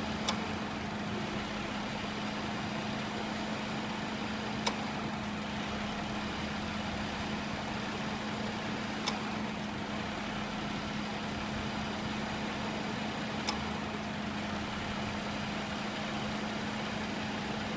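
2013 Ford Explorer engine idling with the A/C on: a steady hum, with a sharp click about every four and a half seconds. The clicks are typical of the A/C compressor clutch cycling on and off, which the owner links to a rough idle.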